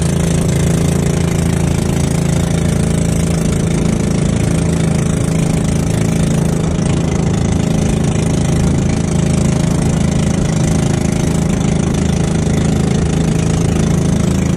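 Outrigger fishing boat's motor running at a steady speed, with wind and spray hissing over it as the boat moves through choppy water.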